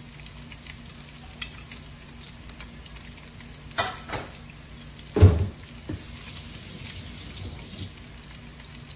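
Pan of rice and brinjal sizzling faintly on the stove over a steady low hum, with a few light clicks and one dull thump about five seconds in.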